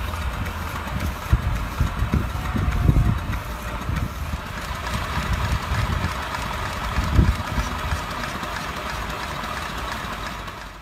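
Wind buffeting the microphone in an irregular low rumble, with stronger gusts about a second in, around three seconds in and about seven seconds in, over a steady hiss.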